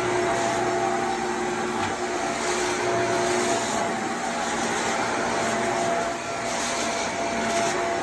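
Vacuum cleaner running continuously, a motor whine over rushing air, with the hiss swelling and fading every second or two as it is worked quickly back and forth.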